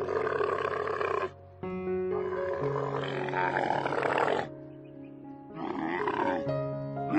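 Three loud, rough animal calls, each a second or two long, over steady background music.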